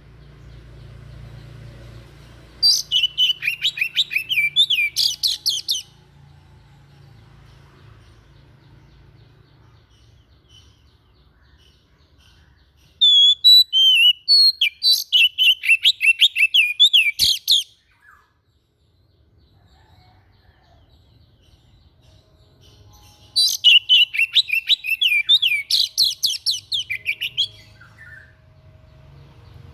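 Songbird known to bird keepers as 'dada putih' (white-breast) singing three bursts of rapid, evenly repeated chirps, about five a second, each note sliding down in pitch; each burst lasts a few seconds, with a faint low hum in the pauses between them.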